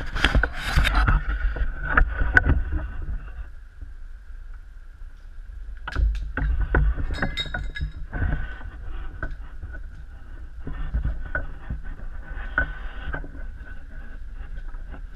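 Footsteps crunching and knocking over burnt rubble and then up a staircase, in irregular clusters loudest in the first few seconds, over a steady low rumble.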